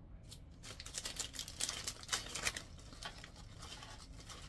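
Plastic candy packaging handled: a quick run of crinkles and clicks, densest between about one and two and a half seconds in, then a few lighter ticks.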